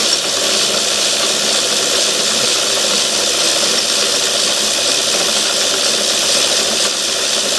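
Myford ML7 lathe running steadily in reverse, its gear train and leadscrew driving the carriage back to the start of a screw-cut thread. This is the return pass of metric thread-cutting on an imperial lathe, with the tool backed out of the cut.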